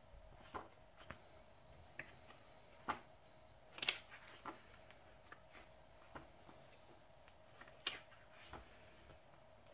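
Pages of a thick hardcover comic omnibus being turned by hand: a string of short, faint paper flicks and rustles at irregular intervals, the loudest about four seconds in.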